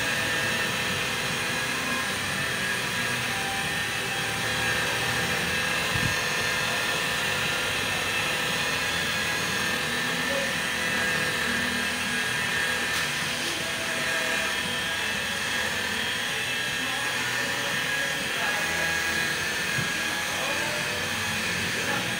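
Electric rotary polisher running steadily with a high motor whine, its foam pad buffing wax on car paint; the whine stops at the very end.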